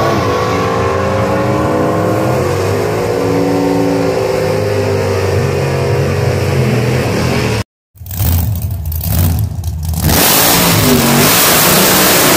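Drag racing car engines at full throttle going down the strip, the engine note shifting in pitch. The sound cuts out abruptly about seven and a half seconds in, then another car revs and runs hard, very loud, from about ten seconds in.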